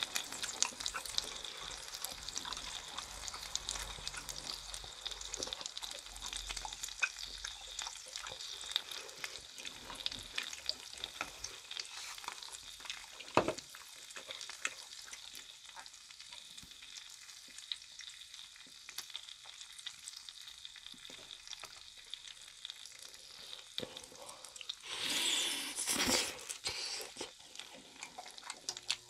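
Chicken skewers sizzling and crackling on a grill, with a sharp knock about halfway through and a louder surge of sizzling near the end.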